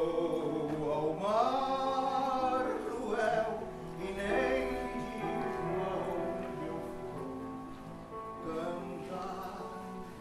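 Mixed choir of men's and women's voices singing sustained chords together, growing gradually quieter toward the end.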